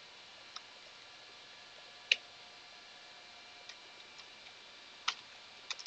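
Scattered single clicks over faint room hiss: a few sharp ticks spaced irregularly, the loudest about two seconds in and a small cluster near the end.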